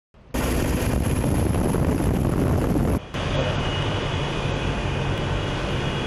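Steady jet-engine roar, broken by a sharp cut about three seconds in and then carrying on as a slightly quieter steady roar.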